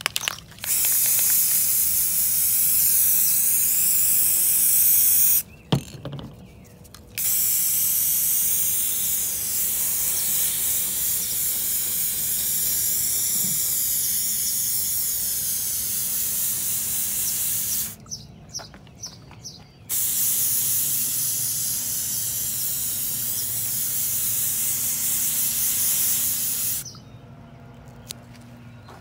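Aerosol spray paint can spraying with a high hiss, in three long sprays of several seconds each separated by short pauses, with a few light clicks in the pauses.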